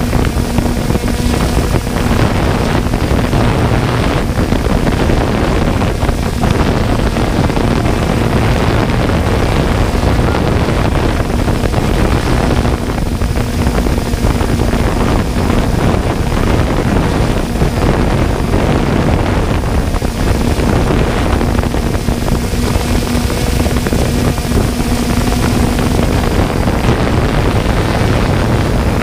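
3DR Solo quadcopter's motors and propellers running steadily, heard from on board the drone, with a low hum that fades in and out and wind rushing on the microphone.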